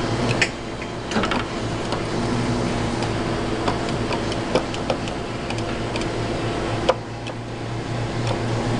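Claw crane machine running: a steady motor hum with scattered sharp clicks and ticks as the claw is worked to rake a plush prize.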